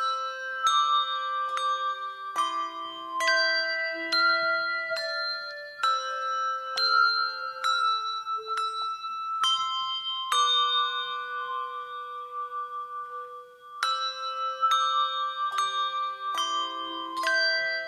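Handbell trio playing a slow melody in chords: each bell is struck and left to ring, notes overlapping, with a longer held chord about halfway through. The playing begins from silence right at the start.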